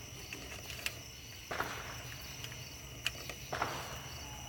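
Faint steady insect chirring in the background, with a few small clicks and two soft rustles about a second and a half and three and a half seconds in.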